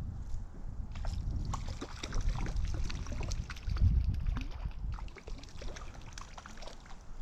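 A hooked brook trout splashing at the surface of a shallow creek: an irregular crackle of small splashes that starts about a second in and breaks off briefly near the fifth second, over a low rumble.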